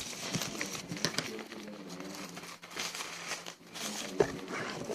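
Plastic packaging crinkling and rustling as a doll and its parts are handled, with scattered small clicks and a sharper tap near the end.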